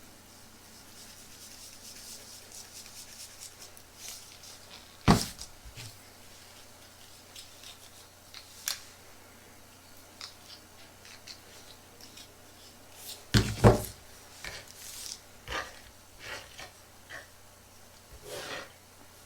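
Close-up handling noises: light rubbing and scattered small clicks and taps, with two loud sharp knocks, about five seconds in and again near fourteen seconds.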